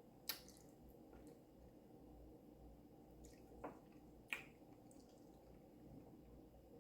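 Faint wet mouth clicks and lip smacks of someone eating: one just after the start and two more about four seconds in, over near-silent room tone.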